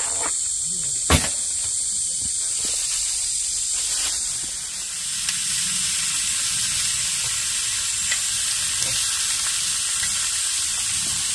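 Slices of meat sizzling on a hot round grill pan over a portable gas stove as they are laid on with tongs; the sizzling thickens a few seconds in. A single sharp click about a second in.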